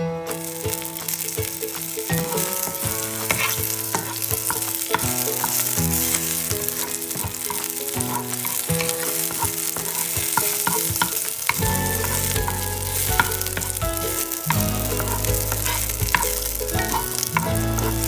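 Olive oil sizzling in a hot stainless steel frying pan as sliced red chili fries in it. A wooden spoon stirs and scrapes across the pan, adding scattered light clicks.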